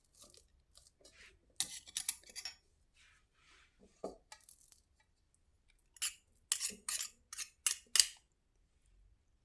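A utensil clinking and scraping against a bowl while a banana is mashed, in two bouts of quick knocks, the second louder near the end.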